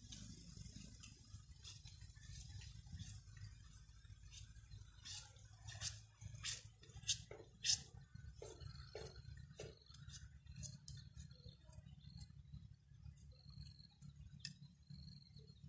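Knife working bamboo into strips: a run of irregular sharp clicks and cracks, loudest and closest together from about five to ten seconds in, over a steady low hum.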